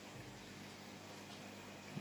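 Faint steady low hum and hiss of running aquarium equipment, with one brief soft tap near the end.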